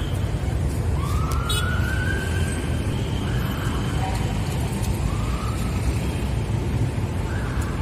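A siren sounding in repeated rising sweeps, each climbing and then holding before it breaks off, about every two seconds, over a steady low rumble of road traffic.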